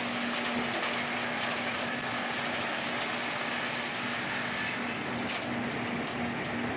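LogRipper-300 scragg mill running: a steady rushing noise with a constant hum, and a few faint clicks near the end.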